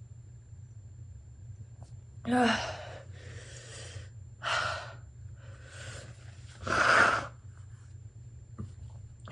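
A woman gasping and blowing out hard three times, about two seconds apart, the first with a short catch of voice: breathing through the burn of ghost pepper noodles.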